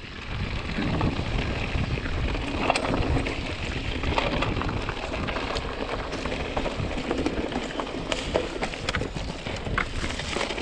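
Mountain bike rolling down a dirt and rock trail: tyres crunching over dirt and small stones, with frequent quick clicks and rattles from the bike.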